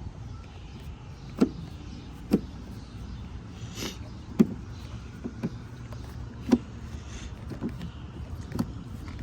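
Sharp plastic clicks and knocks, a second or two apart, from trim pieces and clips being pried and handled on a car's interior door panel, over a steady low hum.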